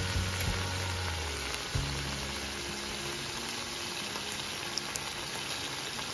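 Clams sizzling steadily in a hot pan with a few spoonfuls of water, their shells steamed open.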